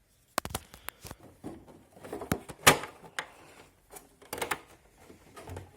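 Irregular plastic clicks and knocks as the dehumidifier's casing is handled and its cables are pulled free of a slot, with one sharper knock near the middle.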